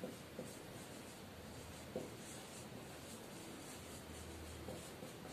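Marker pen writing on a whiteboard: faint strokes of the tip across the board, with a few light clicks.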